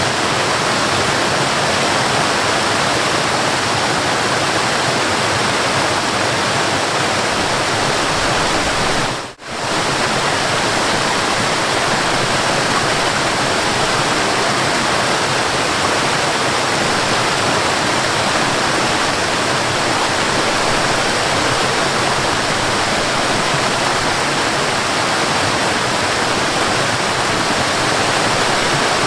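Forest waterfall rushing steadily, a dense even roar of falling water. About nine seconds in the sound drops out for a split second and returns.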